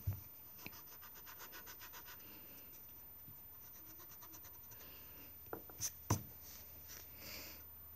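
Pencil scratching and rubbing on paper, with a run of quick back-and-forth strokes about a second in and softer rubbing later. A dull thump at the very start and three sharp knocks around six seconds in are the loudest sounds.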